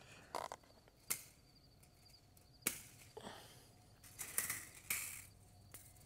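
Barbed-wire fence strands being handled and worked loose by hand: a handful of sharp clicks and scrapes at irregular intervals.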